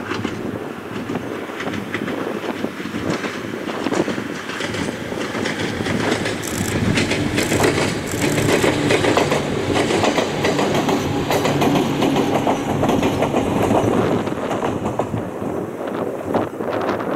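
Ohmi Railway two-car electric train passing, wheels clattering rhythmically over the rail joints with a steady motor hum. It is loudest in the middle as it goes by, then fades. Wind is buffeting the microphone throughout.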